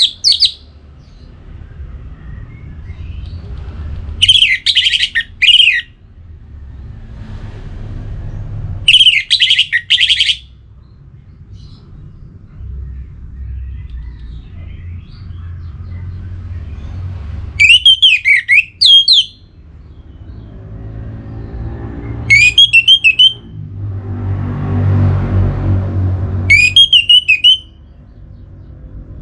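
Orange-headed thrush singing in short, loud phrases of quick up-and-down whistled notes, five phrases several seconds apart, over a low background rumble that swells briefly near the end.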